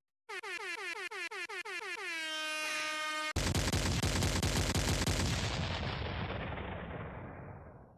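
DJ-style air horn sound effect: a rapid run of short pitched blasts that speeds up into one held blast. About three seconds in it is cut off abruptly by a louder rapid-fire rattle like machine-gun fire, which fades away over the next few seconds.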